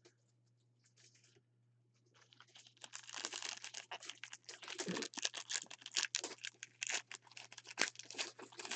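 A trading-card pack's foil wrapper crinkling and tearing as gloved hands rip it open: a dense, irregular run of crackles that starts about two seconds in.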